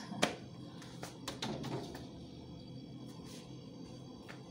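A handful of light knocks and clicks as food containers and tins are set down and shifted on fridge shelves, over faint background music.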